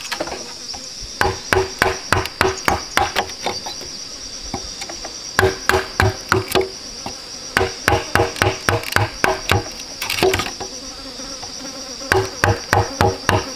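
Quick runs of hollow knocks as a tool strikes inside a green bamboo tube, knocking out its inner nodes, in four bursts with short pauses. A steady high insect buzz runs beneath.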